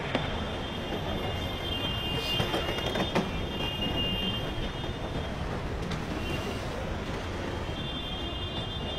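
Tsunami floodwater rushing through a town, a steady dense noise of churning water sweeping cars and debris along, with a few faint knocks. Thin high steady tones sound above it a couple of seconds in and again near the end.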